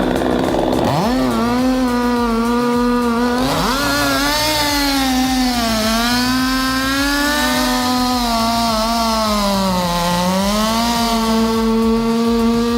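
Chainsaw engine running at high revs. Its pitch drops briefly about half a second in, comes back up at about three and a half seconds, and sags again for a moment about ten seconds in.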